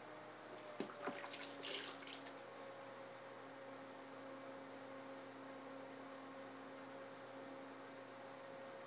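Electric pottery wheel running with a faint steady motor hum, which drops slightly in pitch about two seconds in. Between about one and two and a half seconds in, a short patch of wet clicks and splashes.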